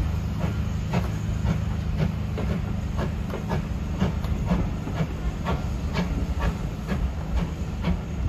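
Steam tank locomotive pulling a train of passenger coaches away at low speed: a steady low rumble of the train with hissing steam and regular exhaust beats about twice a second.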